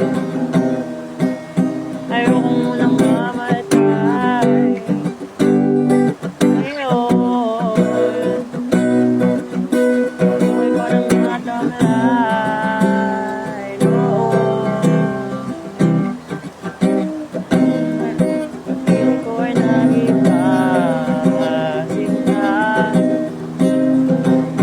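Acoustic guitar strummed and picked in a relaxed jam, with a voice singing a wordless melody over it at times.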